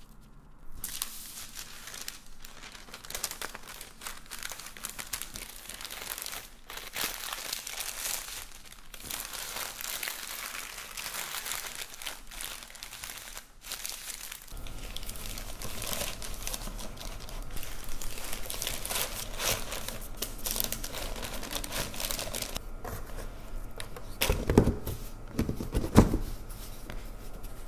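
Parchment paper crinkling and rustling as it is wrapped and rolled around a log of sesame-coated chicken. About halfway through the background changes abruptly, the rustling goes on, and two loud wooden knocks come near the end as a bamboo steamer is handled.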